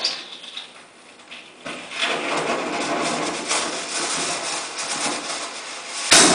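Improvised ballpoint-pen firework burning with a steady fizzing hiss and small crackles, then a sudden loud bang near the end.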